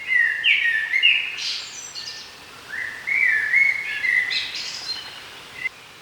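A songbird singing two phrases about three seconds apart, each a quick run of notes stepping up in pitch to a high flourish, over a faint steady background hiss.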